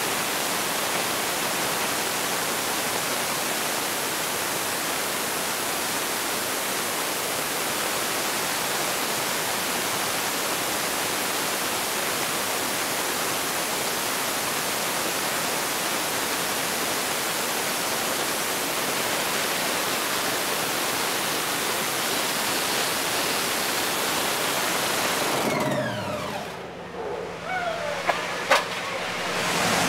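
Top fuel dragster's supercharged, nitromethane-burning Hemi V8 running during its pit warm-up, so loud that it comes through as a steady, even rush of noise. About 25 seconds in the engine is shut off and winds down in falling pitch, followed by a sharp tick near the end.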